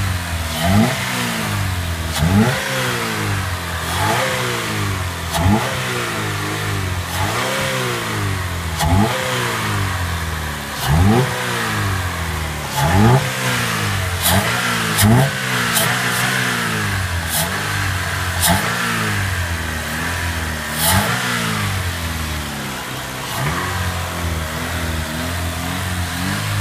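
GM 2.2 L L61 Ecotec inline-four engine blipped over and over with its air intake removed, so the open induction is heard. The revs rise and fall again every one to two seconds.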